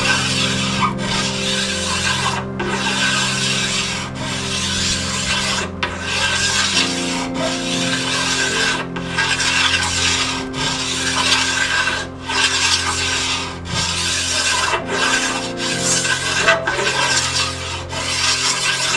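Osage orange bow limb being rasped down by hand, taking wood off along its whole length to even up the tiller. A steady run of strokes, each about a second long, with short breaks between.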